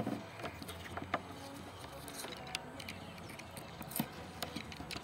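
Faint handling noises: a few light clicks and rustles as tape backing is trimmed around a rooftop cable-entry housing, over a low steady hum.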